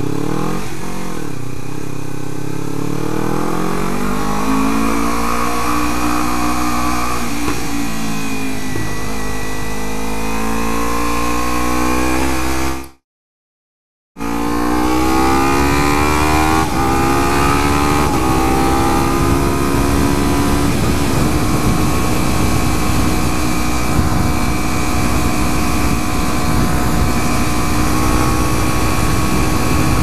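Kawasaki Ninja 300's parallel-twin engine accelerating through the gears, its pitch climbing and dropping back at each upshift, then holding steady at cruising speed. The sound cuts out completely for about a second a little before halfway.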